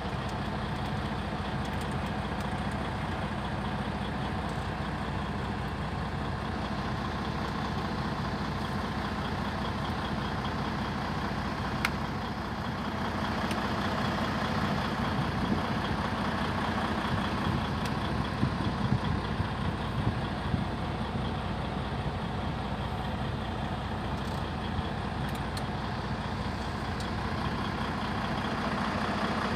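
A motor vehicle running steadily: a low engine hum with an even rush of road noise, slightly louder for a few seconds in the middle.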